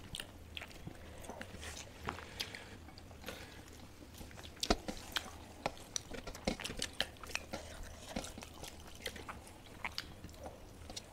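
Faint chewing and eating of rice with curry: irregular wet mouth clicks and smacks, with no talking.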